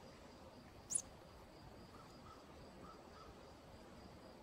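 Faint outdoor ambience with a steady high-pitched insect drone, broken about a second in by a single short, sharp high chirp.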